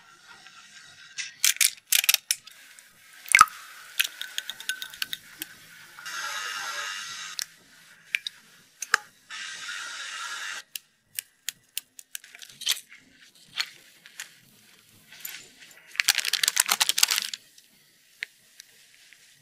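KitchenAid electric hand mixer whisking a creamy mixture in a glass bowl, heard as two steady stretches of whirring hiss of a second or so. Around them are scattered sharp clicks and taps, with a dense rattle of rapid clicks near the end.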